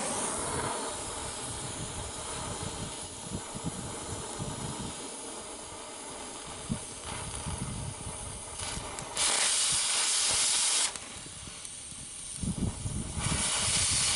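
Gas cutting torch hissing steadily as it cuts metal. It turns to a much louder, higher hiss for about two seconds around nine seconds in, and again near the end.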